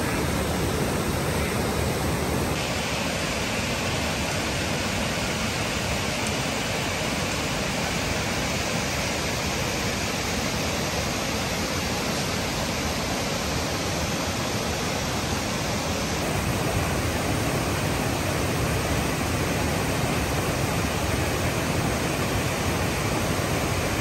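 Mountain stream rushing over granite slabs and cascading into a pool: a steady rush of water, shifting slightly in tone about two seconds in and again past the middle.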